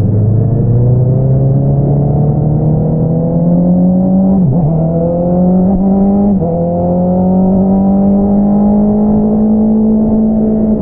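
2022 Honda CBR650R inline-four with an Akrapovič single-outlet exhaust pulling under acceleration, its engine note rising steadily over the first few seconds. The note dips briefly twice, around four and a half and six and a half seconds in, then holds a high, even note.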